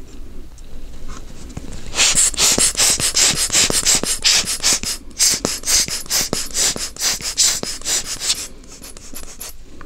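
Rubber hand air blower squeezed over and over, a quick string of air puffs lasting about six seconds, to clear dust from the watch.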